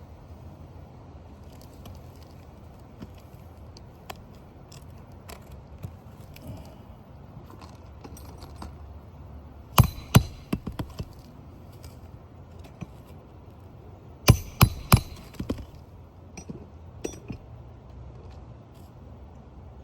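Roof snake striking a nail under a shingle: two short clusters of sharp metallic hits, a couple of loud blows followed by lighter ones about halfway through, then three quick loud blows a few seconds later, with fainter ticks of tool handling between.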